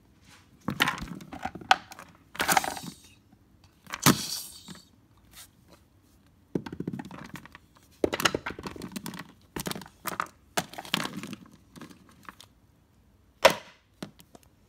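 Handling noise close to the phone's microphone: irregular rustling, scraping and clicks as a toy and the phone are handled, with one sharp click near the end.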